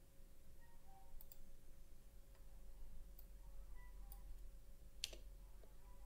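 A few faint, sparse clicks of a computer mouse and keyboard being worked, the sharpest about five seconds in, over a faint steady hum.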